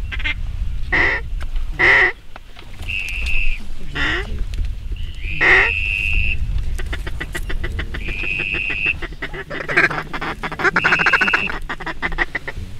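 Duck calls blown at a circling flock: sharp single quacks and several drawn-out high whistle notes, with a run of rapid clicking chatter in the middle.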